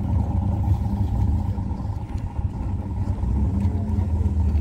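A loud, steady low rumble with a faint hum, flickering rapidly in level.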